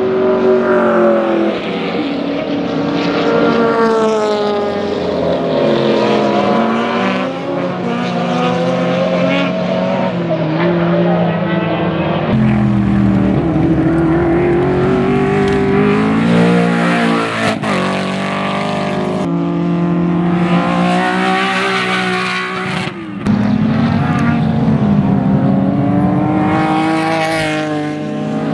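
Racing muscle cars' engines revving hard as they pass, several engines overlapping, their pitch climbing and then falling back again and again. The sound changes abruptly to a new pass about twelve seconds in and again about twenty-three seconds in.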